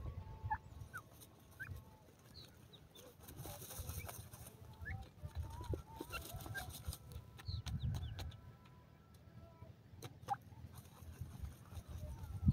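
Grey francolins dust-bathing in loose dry soil: rustling of dirt and feathers as they roll, with many short soft chirping and clucking notes, over a low rumble that comes and goes.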